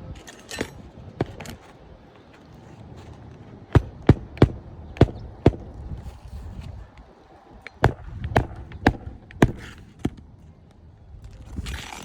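Hammer driving roofing nails into asphalt shingles: two runs of sharp blows, about five in the first and four in the second, a few seconds apart. A few lighter knocks come before them, and a rustle near the end.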